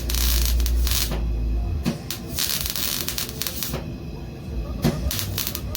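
MIG welder arc crackling and sizzling in short runs that start and stop several times, with a low hum under the first two seconds.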